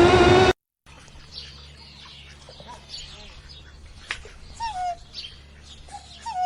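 Birds chirping and tweeting in quick short notes, with a couple of lower calls that bend downward near the end, over a steady low hum. A louder pitched sound from before cuts off abruptly about half a second in.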